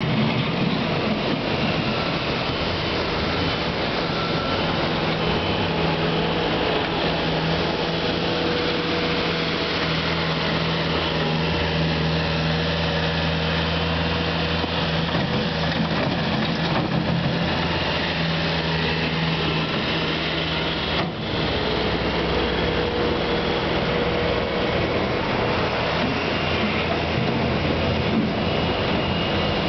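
Bobcat S250 skid-steer loader's diesel engine running steadily under load as the machine pushes and stacks snow.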